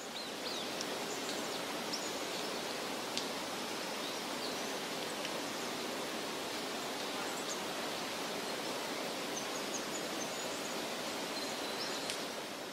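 A steady rushing-water nature ambience with faint, scattered high bird chirps over it. It fades up in the first half-second and then holds even.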